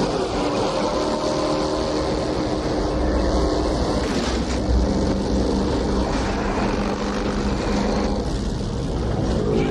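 Vehicle engine noise from a film soundtrack: a continuous low drone with several steady pitched tones that shift a few times.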